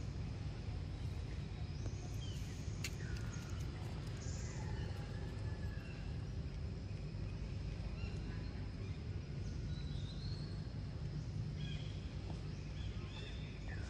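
Outdoor ambience: a steady low rumble, with faint bird chirps and short whistles scattered through it and a single sharp click about three seconds in.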